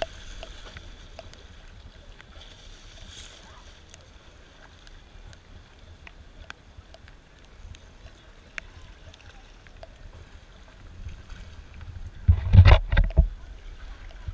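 Small waves lapping close to the microphone, with scattered light drips and ticks, against a capsized whitewater kayak. About twelve seconds in comes a short burst of loud splashing as the paddler surfaces beside the upturned boat.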